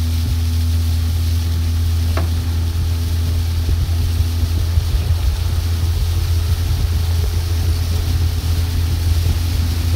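Outboard motor of a coaching launch running steadily at cruising speed, a constant low hum, under wind and water hiss. A single short click about two seconds in.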